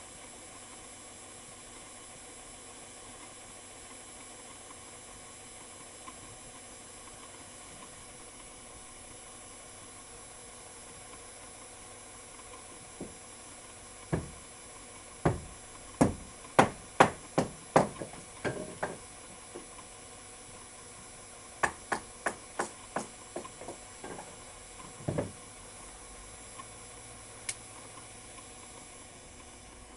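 Hand hammer striking hot metal on an anvil while forging a railroad spike: two runs of sharp, ringing blows, about two to three a second, starting about halfway, over a steady hiss from the shop-vac-blown forge.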